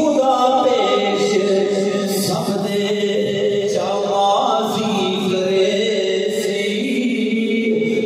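A man chanting devotional verse unaccompanied into a microphone, in long held notes that slide from pitch to pitch, phrase after phrase.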